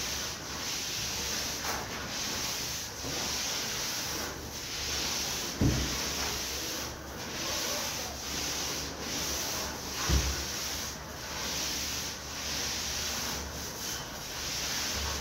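A 36 cm high-nap (18 mm) wool paint roller rolling wet paint across a plastered wall, a repeated rubbing swish in strokes about a second apart. Two short low thumps sound about a third and two thirds of the way through.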